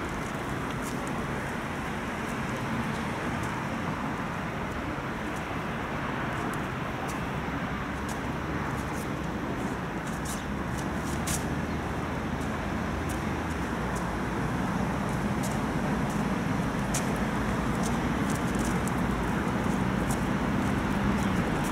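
Steady traffic noise, with a vehicle engine's low hum growing louder over the second half, and a few faint ticks.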